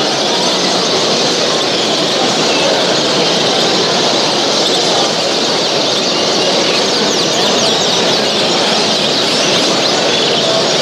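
Dense, steady chorus of many caged birds chirping and singing at once, thick with short high chirps.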